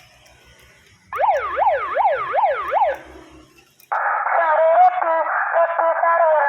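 Battery-powered electronic siren sounding: a fast rising-and-falling yelp, about five sweeps over some two seconds, starting about a second in. After a short pause it switches to a different stepped, warbling electronic tone a little before the end.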